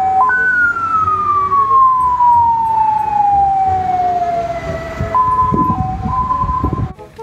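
Ambulance siren sounding one long wail that falls slowly from high to low over about five seconds. Stepped musical notes run underneath and take over after it.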